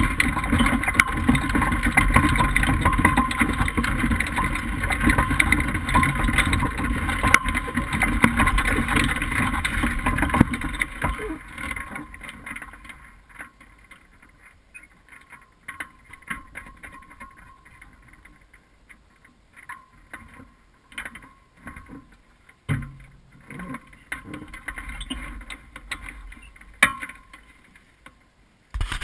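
Steady rushing rumble picked up by the wing-mounted camera as the hang glider is wheeled across grass. It stops about ten seconds in, leaving quiet with scattered small clicks and knocks from the glider's frame being handled.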